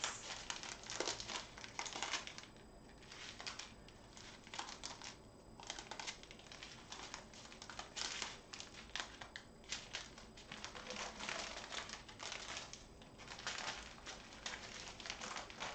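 Small plastic bags of diamond painting drills crinkling and rustling as they are handled and laid out, in irregular bursts of crackle.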